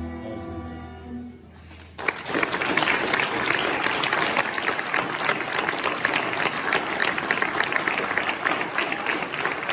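A string orchestra's final held chord dies away, and about two seconds in the audience breaks into applause that runs on.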